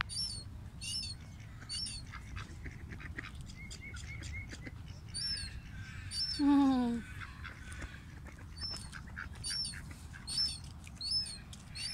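A flock of Eurasian coots and ducks calling: runs of short, sharp, high-pitched calls about twice a second, with one lower, louder falling call about six and a half seconds in.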